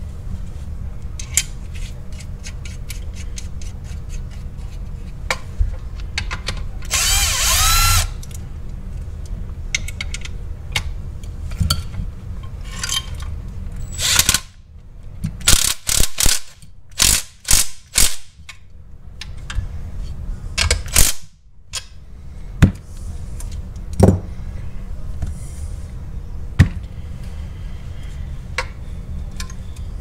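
Cordless drill-driver running a bolt into a steel pedal bracket. There is one longer run about seven seconds in, then a string of about seven short bursts in the middle, with clicks and clinks of metal parts being handled in between.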